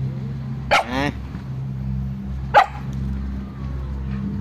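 A dog barks twice: a yelping, stepped bark about a second in and a short, sharp bark about two and a half seconds in. A steady low hum runs underneath.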